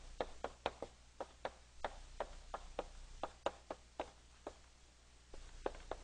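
Chalk striking and writing on a blackboard: a string of sharp, irregular taps, a few per second, as each letter is written.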